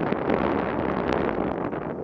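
Wind buffeting the microphone and knobby tyres rolling fast over a dirt singletrack on a mountain bike descent, with many small clicks and rattles from the bike throughout.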